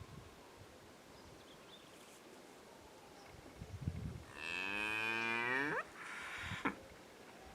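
A cow mooing: one long call starting a little past the middle, its pitch bending upward toward the end, then a short breathy sound. A few low grunts come just before the call.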